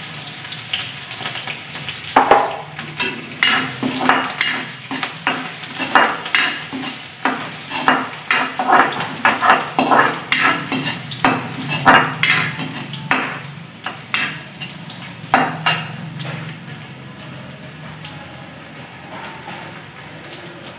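Green chillies and cumin seeds sizzling in hot oil in a kadhai for a tempering, while a spatula stirs them, scraping and clinking against the pan about twice a second. The stirring strokes die away in the last few seconds, leaving the steady sizzle.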